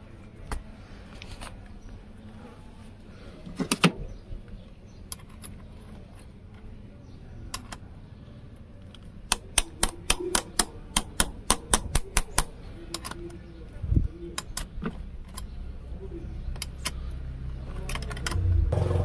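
Metal clicks and clinks of a spanner working a car battery's negative terminal clamp as it is fitted on the post and tightened. There are a few scattered clinks, then a quick run of about four clicks a second for a few seconds. A low rumble builds near the end.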